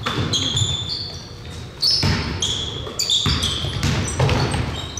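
Basketball game play: a basketball bouncing on the court a few times at uneven spacing, and sneakers squeaking in short, high chirps.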